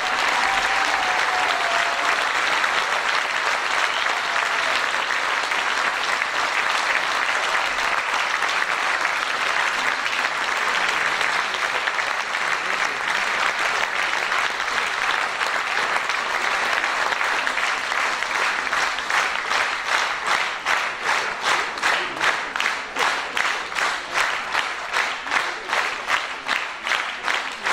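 Audience applauding at length. About two-thirds of the way through, the applause falls into rhythmic clapping in unison, about two claps a second.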